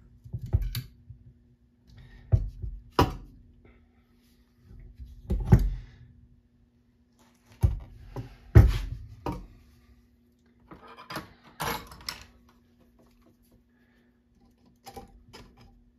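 Metal clicks, taps and knocks from a valve spring compressor and small tools on a Gravely engine cylinder, in short clusters a few seconds apart, as the spring is held compressed and a stuck valve keeper is worked at. A faint steady hum runs underneath.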